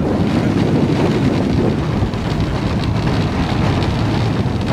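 Wind rushing over the microphone of a rider on a moving Intamin mega coaster, with the train's rumble underneath: a steady, loud rushing noise.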